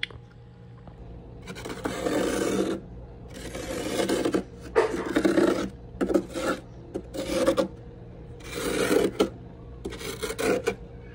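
Heavy frost being scraped off the inside walls of a freezer with a white plastic utensil: about seven scraping strokes, each up to a second long, with short gaps between.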